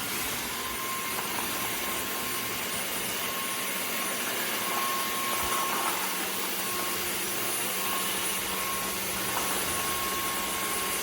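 Vacuum cleaner motor running steadily: an even whirring hiss with a faint high whine.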